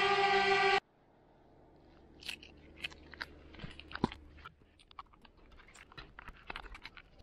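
DJI Mavic Air hovering on its stock propellers, a steady multi-tone whine that cuts off under a second in. Then irregular small clicks and snaps as its plastic propellers are pulled off the motors and the replacement MasterAirscrew STEALTH propellers are pressed on by hand, the loudest snap about four seconds in.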